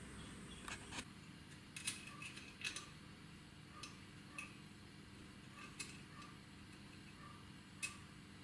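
Light, irregularly spaced metallic clicks and taps of a steel rule being handled against a steel workpiece held in a lathe chuck, over a faint steady hum.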